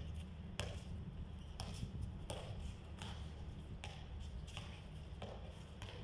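A basketball being dribbled on a concrete court: a string of sharp, faint bounces about one a second, over a steady low rumble.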